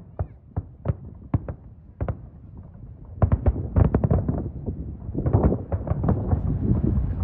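Fireworks display: single bangs of bursting shells a few times a second at first, then about three seconds in a rapid, dense barrage of cracks and booms that builds louder toward the end.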